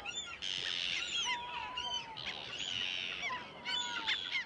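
A seabird breeding colony calling: many short, overlapping calls from numerous birds over a steady chorus.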